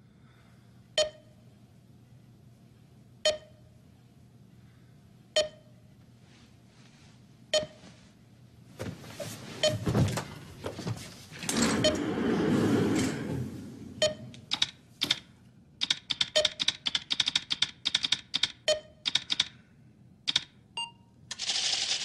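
A short electronic beep repeats about every two seconds. A few seconds of louder rushing noise follow, then a quick run of keystrokes on an old computer keyboard, with a louder burst of noise near the end as the Execute key is pressed.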